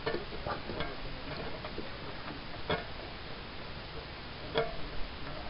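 Wing nut on a car's air cleaner lid being turned by hand, with a few light, irregularly spaced clicks and taps of metal and plastic.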